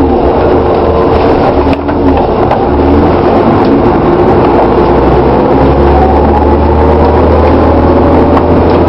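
DAF DB250LF bus drivetrain with its 3-speed Voith automatic gearbox, heard from inside the saloon as a steady low engine drone. About halfway through, a whine starts to rise steadily as the bus picks up speed.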